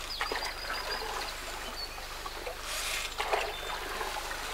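A paddle stroking through river water, with trickling and splashing, loudest about three seconds in. Birds chirp faintly in the background.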